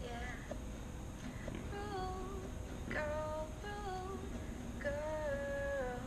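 Background music: a woman's voice singing a slow melody of held notes in short phrases.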